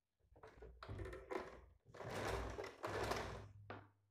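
Domestic electric sewing machine stitching a tuck in a few short runs, with brief pauses between them.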